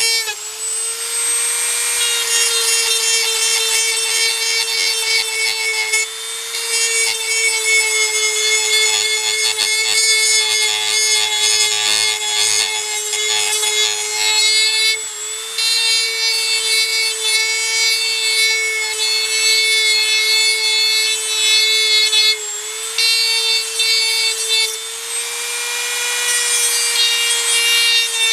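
A high-speed handheld power tool runs continuously, cutting back the dash trim so a double-DIN stereo will fit. Its steady whine drops in pitch briefly a few times as it bites into the material.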